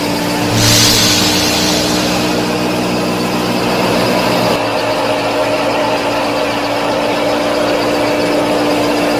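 Small electric gear motors of a homemade mini combine harvester and thresher running steadily with a motor hum. About four and a half seconds in, one part of the sound, a lower hum and a high hiss, drops out and the rest runs on.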